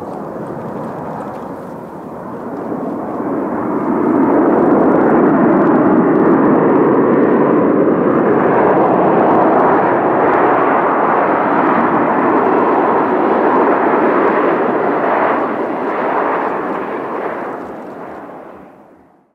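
Boeing 737-800's CFM56 jet engines at high thrust: a loud, steady rushing noise that builds over a couple of seconds, holds, and then dies away near the end.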